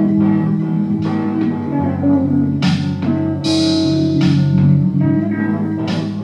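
Guitar-led band music over a bass line, with several sharp crashes about two and a half, three and a half and six seconds in.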